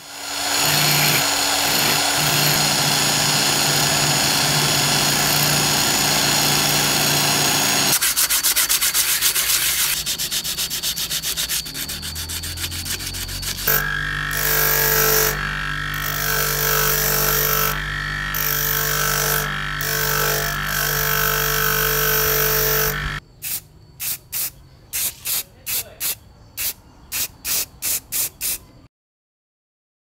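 A handheld rotary tool with a small wire brush scouring rust off a metal coffee-grinder part. About halfway it gives way to a bench grinder's wire wheel running and brushing the part, with a steady whine. Near the end come a string of short spray-can bursts of paint.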